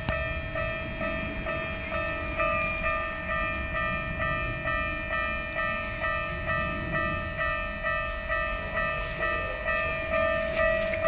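Japanese railway level-crossing alarm ringing in an even, repeating two-tone pattern of about two strokes a second. Under it is the low rumble of a Keikyu New 1000 series train passing at reduced speed.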